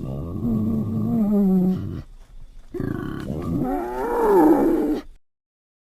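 A pig giving two long, drawn-out calls, the second wavering up and down in pitch; the sound cuts off suddenly about five seconds in.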